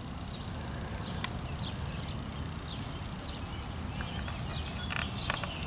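Small birds chirping in short high notes over a steady low rumble, with a sharp click about a second in and a few more clicks near the end.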